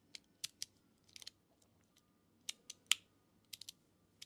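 Metal magnetic fidget slider, the Proxy EDC Ginger 1.5, clicking as its plates are slid and snap between magnet positions. About a dozen short, sharp clicks come at irregular spacing, some in quick clusters, with the loudest about three seconds in.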